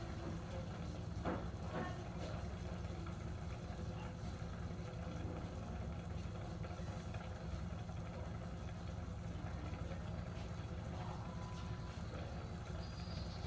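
Pork adobo simmering uncovered in a stainless pot on a gas burner, as its vinegar sauce cooks down: a steady low rumble from the burner with faint bubbling crackle from the pot.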